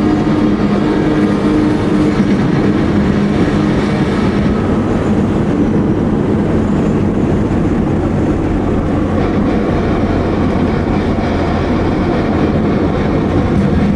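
Road and engine noise inside a moving car: a steady low rumble with a constant hum.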